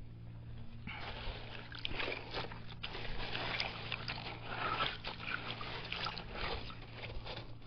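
Fossil-hunting sifter being shaken in creek water: wet gravel and sand rattle and slosh through the mesh, starting about a second in and stopping near the end.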